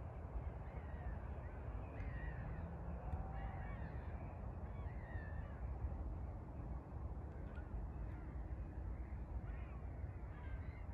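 A flock of birds calling, many short rising-and-falling notes scattered throughout, over a steady low rumble.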